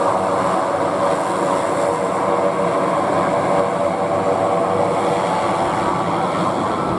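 Basler BT-67 turboprop DC-3's twin turboprop engines running as it taxis past: a steady, loud propeller and turbine drone.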